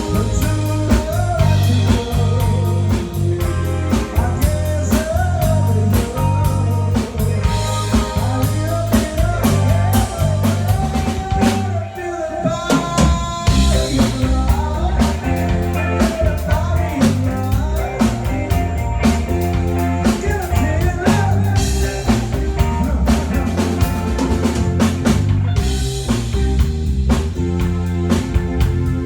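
A rock band playing live: a drum kit keeping a steady beat under bass and electric guitar, with a lead line of bending notes over the top. The band drops out briefly about twelve seconds in, then comes back in.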